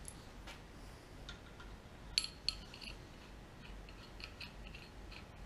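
Light metal-on-metal clinks from the cam timing gear being handled and fitted on the front of the camshaft: two sharp ringing clinks about two seconds in, then a few fainter ticks.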